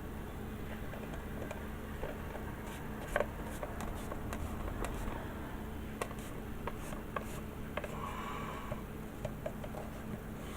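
Small clicks, taps and rubbing from handling plastic model parts and wiring, scattered irregularly over a low steady hum, with a brief higher-pitched squeak about eight seconds in.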